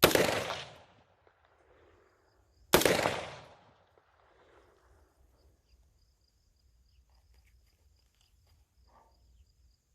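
Two gunshots about three seconds apart, each followed by a short echo rolling off, with a third shot right at the end.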